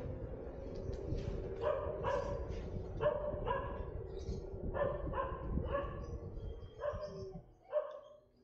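A dog barking over and over in quick runs of short barks, over a low road rumble that fades near the end.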